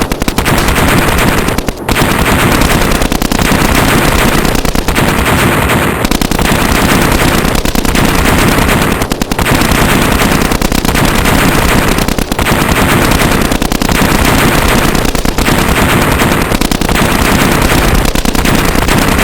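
Sustained rapid machine-gun fire, long continuous bursts broken by short gaps about every second and a half.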